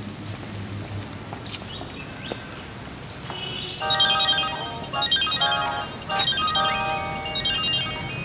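Mobile phone ringtone: an electronic melody of short, quickly repeated notes that starts about four seconds in and keeps playing in phrases with brief gaps.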